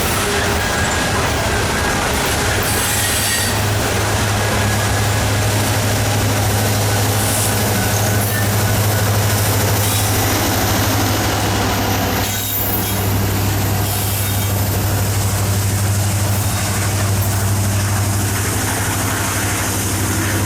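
Loaded coal train's freight cars rolling past, a steady loud rumble of steel wheels on rail.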